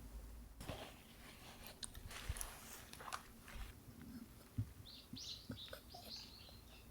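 A bird chirping faintly, a quick series of high calls about five seconds in, over soft scattered clicks and rustles.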